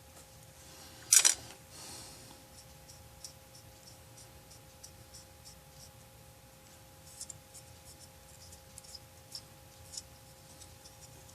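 Small handling sounds of work on a plastic scale model: faint scratches and light clicks scattered throughout, with one sharp knock about a second in, over a faint steady hum.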